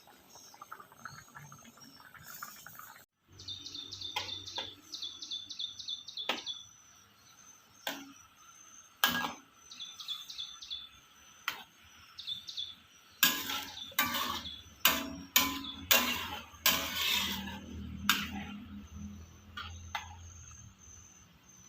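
Kitchen clatter: a series of sharp knocks and clinks of utensils, loudest and quickest toward the middle, while small birds chirp in short repeated bursts behind them.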